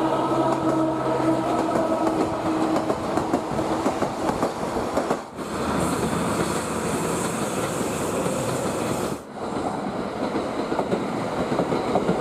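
Three trains passing in turn on parallel tracks: a yellow Sangi Railway Hokusei Line narrow-gauge electric train with a steady whine, then about five seconds in a diesel locomotive hauling tank wagons, then about nine seconds in a red Kintetsu Hinotori limited express electric train.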